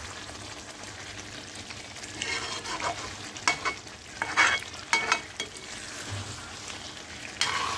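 Masala-coated chicken sizzling in oil in a metal kadhai as it is fried down (bhunai), with a metal spatula scraping and stirring against the pan in several strokes from about two seconds in until past the middle, and once more near the end.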